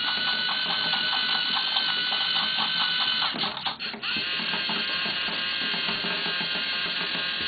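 LEGO Mindstorms NXT motors driving the horse figures along their treaded tracks: a steady electric whirring with fast, regular clicking. It breaks off briefly about three and a half seconds in, then starts again.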